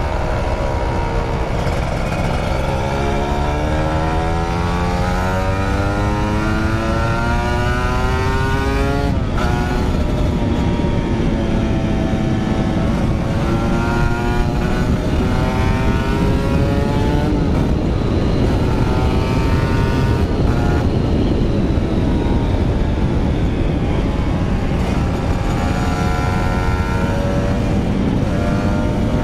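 Motorcycle engine pulling hard through the gears: the engine note climbs steadily for several seconds, drops at a gear change about nine seconds in, then climbs again with more shifts later. Steady wind and road noise runs underneath.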